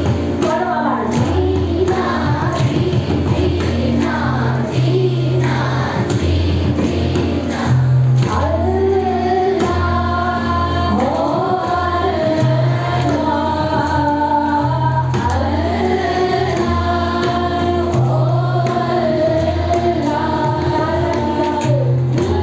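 A woman singing a dhrupad composition in long phrases that glide up and down, over a steady tanpura drone, with deep pakhawaj drum strokes beneath.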